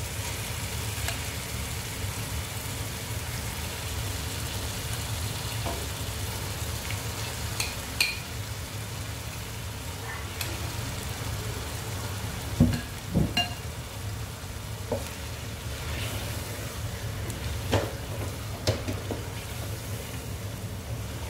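Yogurt-marinated chicken being spooned into a pot of garlic, ginger and green-chilli paste, sizzling steadily in hot oil. Scattered knocks and thuds from the wooden spoon and pieces going in, the loudest pair about halfway through; near the end it is stirred with a wooden spatula.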